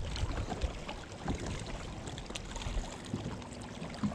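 Wind buffeting the microphone over a steady low rumble, with small waves lapping against the hull of a fishing boat and scattered light knocks.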